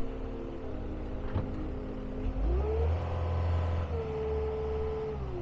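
Caterpillar 272D skid steer's diesel engine idling, then revved up a little past two seconds in, held high for about two seconds and falling back toward idle near the end. A single sharp click just after a second in.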